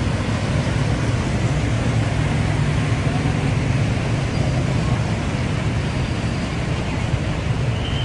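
Steady traffic noise from cars and motorcycles driving slowly through floodwater, a constant low engine hum under the wash of tyres through water.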